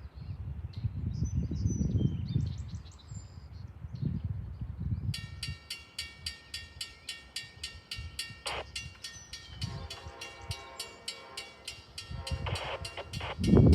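Railroad grade-crossing warning bell starts up about five seconds in and keeps dinging at a rapid, even rate: the crossing signals activating for an approaching train. Before it there is low wind rumble on the microphone and a few bird chirps, and a low rumble grows near the end.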